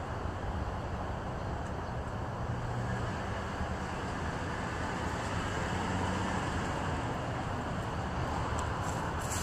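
Steady background noise with a low hum and no speech, with a few faint crackles near the end.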